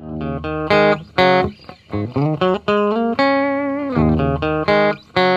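Intro music: a guitar plays a lead melody of separate plucked notes, with one held note about three seconds in that wavers and then slides down in pitch.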